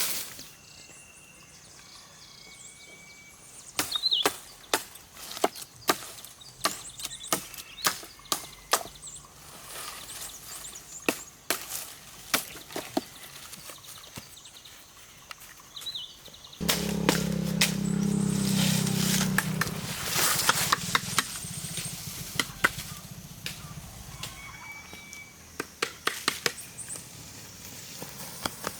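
Irregular sharp knocks and cracks, like chopping or hacking at wood, with a louder low rumble joining about seventeen seconds in for several seconds. A few faint high chirps.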